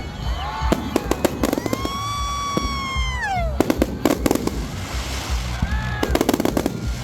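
Aerial fireworks popping and crackling in quick clusters, about three bursts of rapid cracks. Between them comes a long high whistle that drops in pitch about halfway through.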